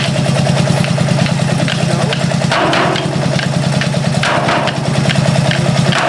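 Engine running steadily with a low, fast, even beat, most likely one of the club's stationary engines. Over it come several sharp hits of drumsticks on steel oil barrels.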